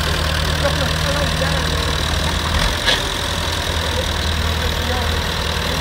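Massey Ferguson 265 tractor's three-cylinder diesel engine running steadily at low revs, with one short knock about three seconds in. Faint voices are heard behind the engine.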